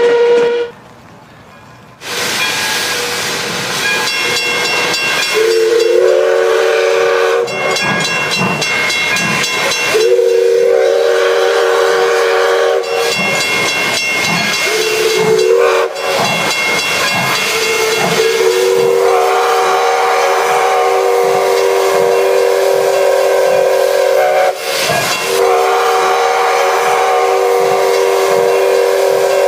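Steam locomotive whistle sounding a chord of several tones over the hiss of steam. It gives a few blasts of two to three seconds each, then one long blast held to the end, with a steady rhythmic pulsing underneath.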